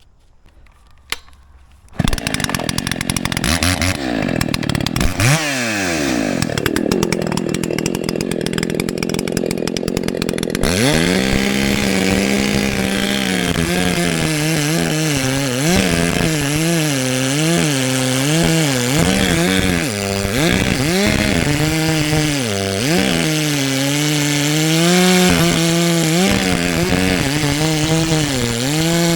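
Chainsaw with a freshly fitted chain starting about two seconds in and revving up and down, then from about ten seconds in cutting wood under load, its pitch dipping and recovering again and again as the chain bites.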